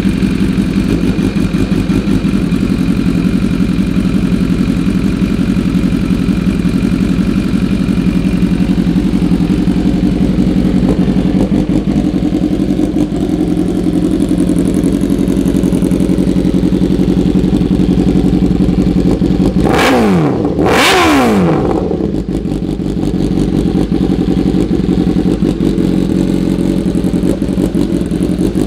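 2017 BMW S1000R's inline-four engine idling steadily, with two quick throttle blips about two-thirds of the way through before it settles back to idle.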